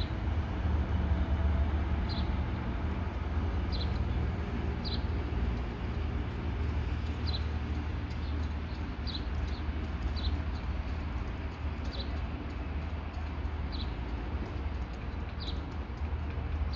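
Plan U diesel-electric train's engine running as it pulls away, a low rumble that slowly fades as it draws off. A bird chirps through it, about ten short high falling notes a second or two apart.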